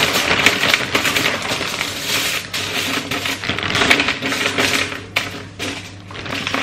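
French fries poured from a plastic bag onto a foil-lined baking tray: a dense clatter of fries landing on the foil mixed with the crinkle of the bag. It thins out to scattered clicks near the end as they are spread by hand.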